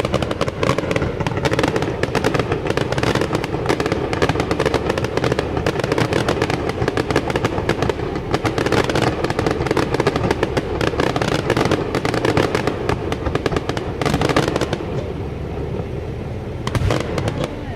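Aerial fireworks crackling and popping densely and without a break. The crackle thins out for a couple of seconds near the end, then picks up again.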